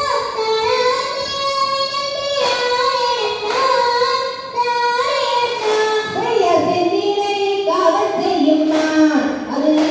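A high voice singing a Tamil Valli Kummi folk song in long, sliding held notes, over a sharp beat about once a second.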